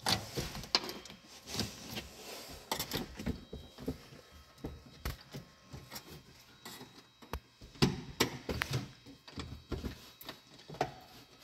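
Irregular clicks, knocks and rustling of plastic interior trim panels and parts being handled and worked loose inside a car cabin.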